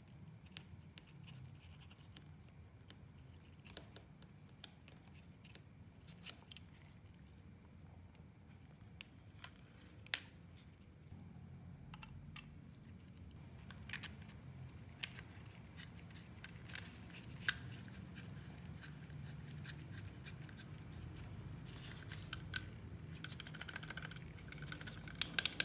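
Scattered small clicks, taps and scrapes of a plastic soldering-gun housing and its wires being handled with nitrile-gloved hands as the housing halves are fitted together. The clicks grow busier in the second half, with a couple of sharper clicks near the end, over a faint low hum.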